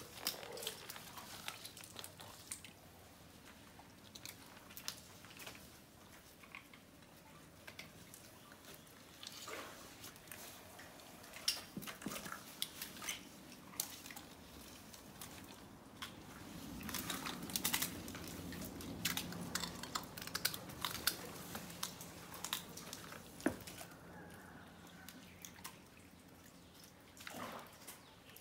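Crocodiles crushing snail shells in their jaws: irregular sharp cracks and crunches throughout, with a low hum underneath for several seconds in the middle.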